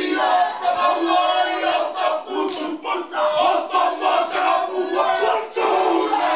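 Group of Māori men chanting a haka in unison, with loud, rhythmic shouted phrases and hand slaps on their chests and thighs.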